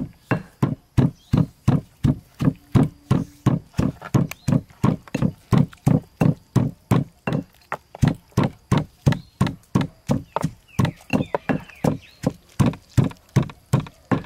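Steady, rhythmic heavy thuds, about three blows a second, like pounding or chopping on a solid surface.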